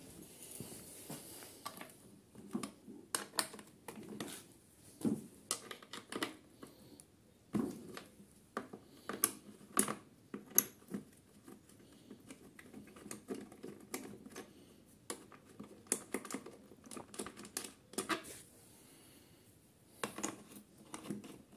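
Irregular light clicks and metallic taps of a wrench and parts being handled, as an 8 mm wrench is fitted and turned on a bolt of a lawnmower engine's top cover.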